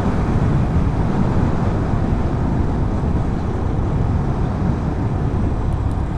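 A motorcycle being ridden: steady wind rush over the microphone with the engine running underneath.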